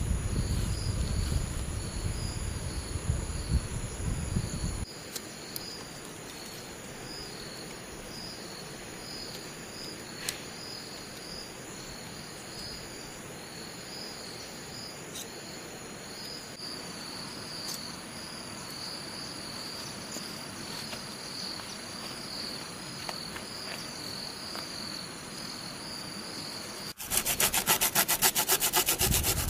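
Insects chirping steadily in a quick repeating high pulse. A low rushing noise underlies the first few seconds and cuts off suddenly; near the end a loud, rhythmic rubbing on wood starts, like sanding or scraping bamboo.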